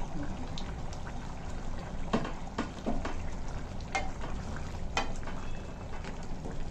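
Chicken cooking in masala gravy in a pan, bubbling and sizzling steadily, while a spoon stirs it and knocks against the pan a handful of times.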